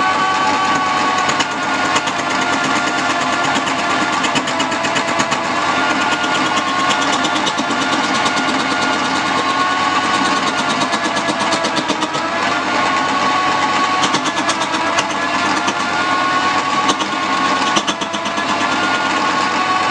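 Wood-turning lathe running with a steady whine, a turning tool scraping and chattering against the spinning wood. The whine dips in pitch twice around the middle, as the cut loads the lathe.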